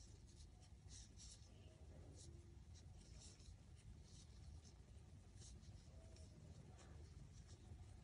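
Faint, irregular scratching and rustling of a metal crochet hook pulling yarn through stitches, over a low steady room hum.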